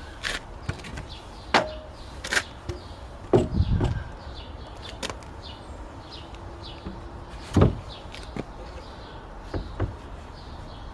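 Irregular knocks and clunks from hands-on carpentry work on a wooden staircase, about eight sharp strikes spaced unevenly, the loudest near the middle. Faint birds chirp in the background.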